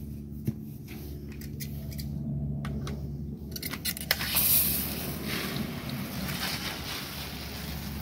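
Clicks and handling of a plastic quick-connect hose fitting, then, about four seconds in, a steady hiss of water as a garden sprinkler on the hose starts spraying.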